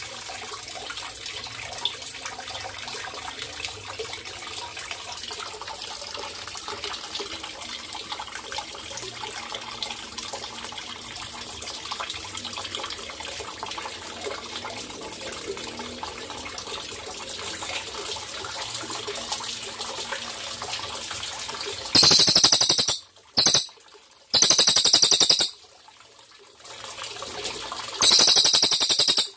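Water trickling steadily, then, from about 22 seconds in, a cililin songbird sings four loud, rapid, high-pitched trills, one of them very short, that stand out over the water.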